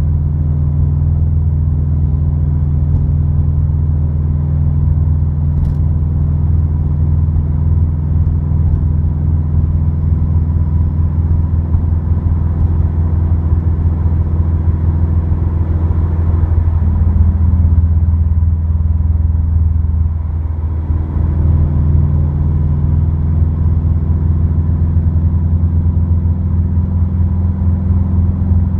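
Subaru WRX's turbocharged flat-four, heard inside the cabin through an Invidia dual N1 cat-back exhaust, giving a steady low drone at cruise. A little past halfway the drone's pitch shifts and dips briefly, then settles back into a steady hum.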